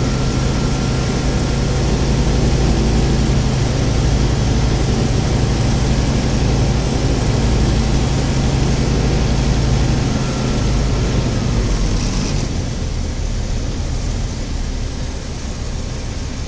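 Single-engine light aircraft's propeller engine running steadily, heard from inside the cockpit with rushing air noise. About twelve seconds in the engine note drops and gets a little quieter as power is eased back.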